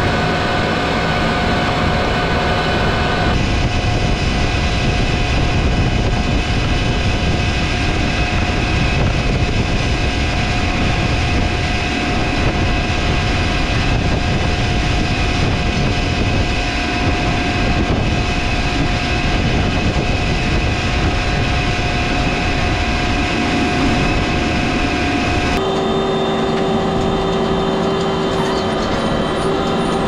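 Farm tractor running steadily at working speed, a loud rumbling drone with several steady whines on top; the sound changes abruptly about three seconds in and again near the end, as between separate recordings.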